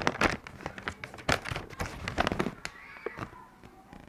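Paper and packaging being handled, with irregular crinkles and taps. It is busiest in the first couple of seconds, then quieter with a few scattered taps.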